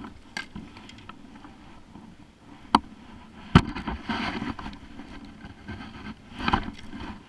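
Scattered knocks and rustling of things handled in a plastic sit-on-top kayak, with two sharp knocks just before the middle and short rustling bursts after them.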